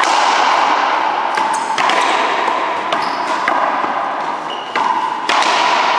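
One-wall racquetball rally: the hollow rubber ball cracks off strung racquets and the wall. There are four loud hits with lighter taps between them, each ringing on in the hall's echo.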